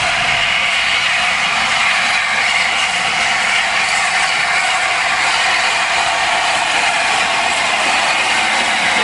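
LNER A4 Pacific steam locomotive 60007 Sir Nigel Gresley moving slowly, with a loud, steady hiss of steam blowing from its open cylinder drain cocks.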